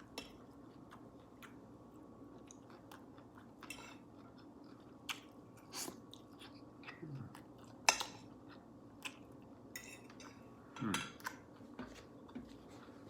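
Close-miked chewing of a person eating, with scattered wet mouth clicks; one sharp click about 8 s in is the loudest. Two short low voice sounds, about 7 s and 11 s in, fall in pitch.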